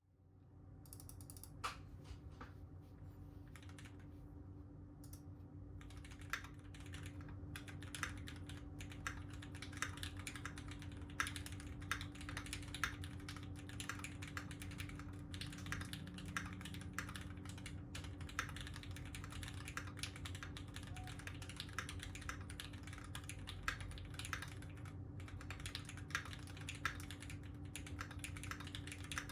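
Typing on a 60% mechanical keyboard with lubed Gateron Yellow linear switches, a brass plate and GMK keycaps. A few separate keystrokes come first, then about six seconds in it becomes steady, continuous typing.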